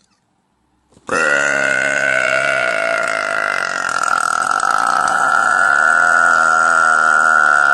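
A woman's very long, loud burp. It starts suddenly about a second in and holds a steady pitch for over six seconds without a break.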